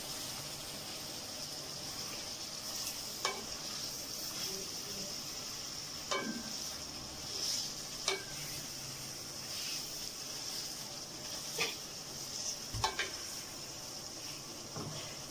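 Chicken with tomatoes and spices sizzling steadily as it fries in oil in a steel pot, stirred with a spatula that knocks or scrapes against the pot a handful of times.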